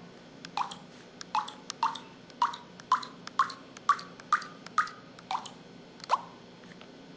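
MS150 mobile phone sound effect: a run of about a dozen short water-drop 'plop' blips, roughly two a second. Their pitch steps upward across most of the run, then falls lower for the last two.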